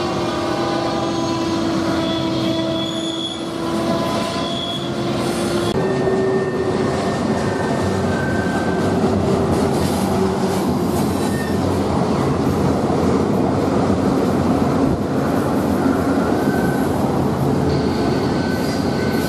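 Freight train rolling past, its car wheels squealing: several high, steady squeal tones that come and go and shift pitch over the steady rumble of the train.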